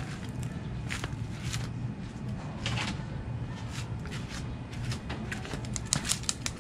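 Footsteps in rubber slippers on a concrete floor with scattered light clicks and scuffs, over a steady low hum.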